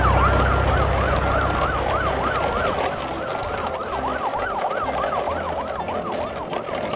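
Electronic siren in a fast yelp, its pitch sweeping up and down about three times a second.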